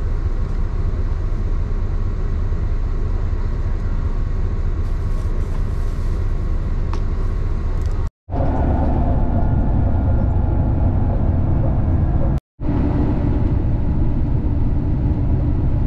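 Steady low rumble of a coach bus's engine and road noise, heard from inside the cabin, broken twice by brief silences.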